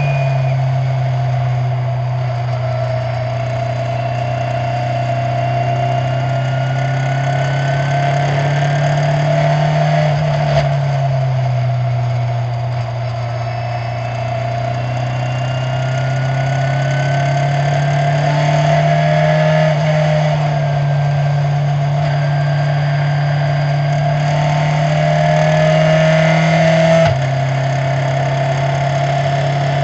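Open-wheel racing car engine heard from the cockpit at speed, with steady wind noise. The engine note climbs slowly as the car accelerates out of a corner, then drops abruptly about 27 seconds in as it shifts up a gear.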